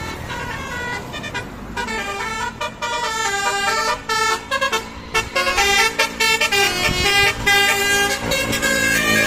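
A bus's multi-tone telolet horn playing a quick melody of short, changing horn tones, several pitches sounding together; it is fainter for the first two seconds, then grows denser and louder.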